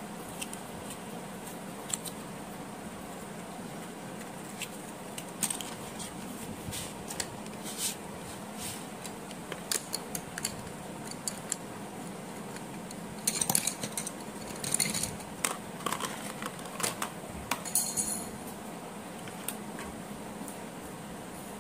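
Wooden pencils clicking and clattering against one another as they are handled and pulled from a pencil box: scattered taps, with a busier run of clicks past the middle, over a steady background hum.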